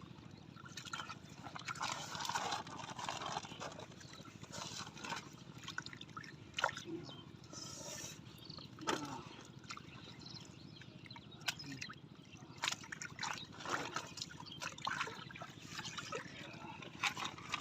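Water sloshing and dripping, with irregular small splashes and knocks.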